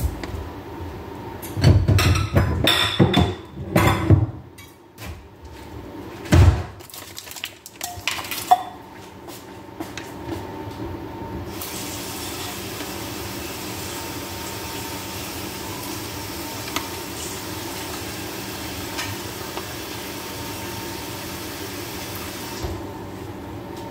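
Knocks and clatter of dishes as a bowl is fetched and set down, then a kitchen tap running steadily into a glass bowl, filling it with warm water to thaw a frozen sauce packet. The water starts about halfway through and shuts off shortly before the end.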